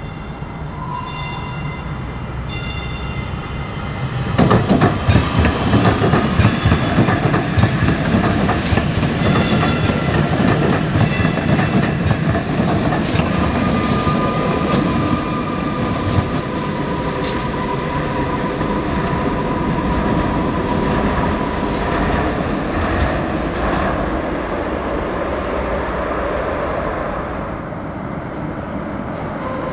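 DART Kinki Sharyo light rail train sounds two short horn blasts, then passes close by, its wheels clicking rapidly over the rail joints and crossovers. A steady whine runs through the middle of the pass, and the sound eases off near the end.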